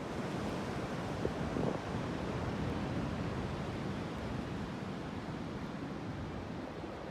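Steady wash of ocean surf at the shore, with wind rumbling on the microphone.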